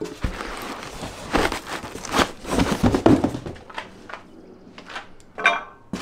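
Plastic wrapping rustling and crinkling, with knocks and thunks from the cardboard box, as stainless steel exhaust pipes are pulled out of their packaging.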